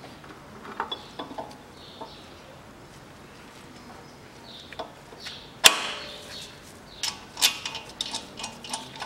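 Metal clinks and knocks as a toothed camshaft pulley is fitted onto the camshaft of a VAZ 2110 16-valve engine and its bolt started by hand. One sharp knock stands out a little under six seconds in, followed by a run of small clicks near the end.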